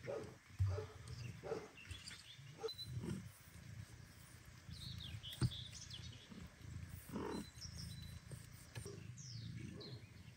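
Cats calling: a kitten's short, high mews and soft adult cat meows, scattered through, over a low steady hum.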